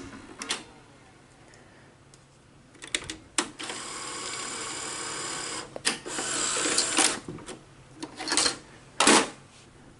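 Sony Betamax video recorder's tape mechanism at work. Front-panel buttons click, the transport motor whirs for a few seconds, and the cassette is ejected from the front slot with a few mechanical clunks near the end.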